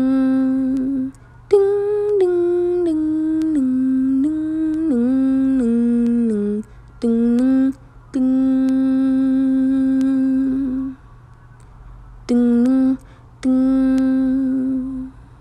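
A female voice humming a slow, wordless melody with no accompaniment, in several phrases with short breaks between them. Some notes are held for a couple of seconds, and one phrase steps down in pitch.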